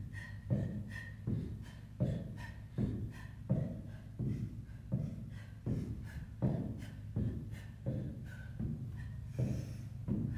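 Sneakered feet striking a wooden floor in a quick, steady rhythm during mountain climbers, about two to three thuds a second.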